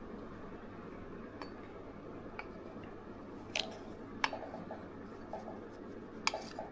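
A few light clicks and taps of small objects being handled, spaced irregularly: two faint ones, then three sharper ones from about the middle on. Under them is a steady low hiss.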